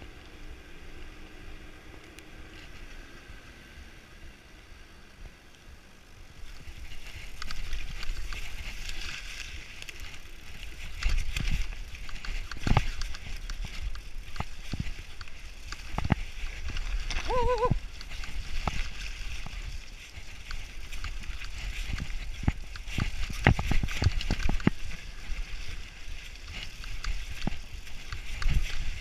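Mountain bike riding down a dirt forest trail: tyres rolling over the ground with frequent sharp knocks and rattles as the bike hits bumps. Quieter for the first few seconds, with a brief squeak about halfway through.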